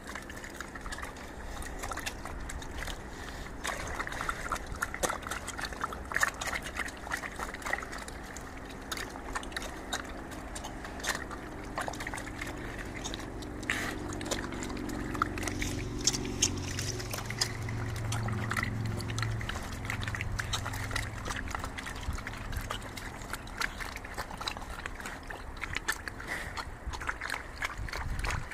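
Pigs slurping and sucking up a liquid feed of produce and water from shallow pans: a continuous, irregular run of wet sucking, dribbling and splashing sounds.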